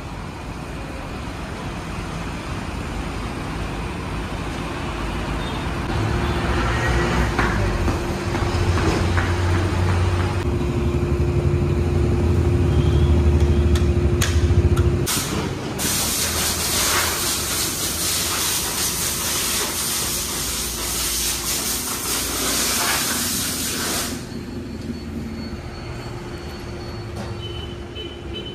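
Wheel balancing machine spinning a Toyota Fortuner wheel to measure its imbalance: a steady hum with a low rumble that builds and then stops about halfway through. A loud steady hiss follows for about eight seconds.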